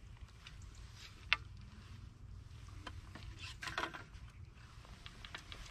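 Faint handling noises at the water's edge over a low steady rumble: a sharp click about a second in, then a short splashy rustle a little past halfway, with a few light ticks.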